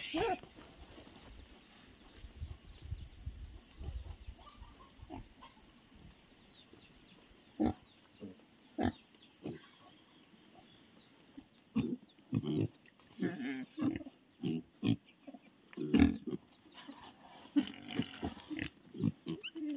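Black pigs grunting in short, separate grunts, a few at first and then in a quick run through the second half.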